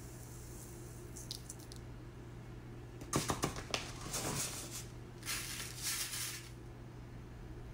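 Wax granules pouring into a metal pouring pitcher on a kitchen scale, with a faint hiss at first. About three seconds in come a few sharp clinks and knocks, then two longer hissing bursts.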